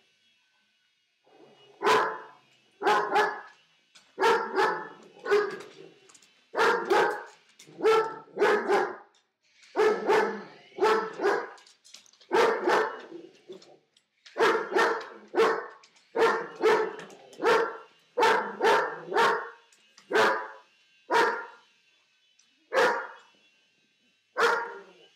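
German Shepherd barking over and over, mostly in quick pairs and threes, thinning to single barks near the end.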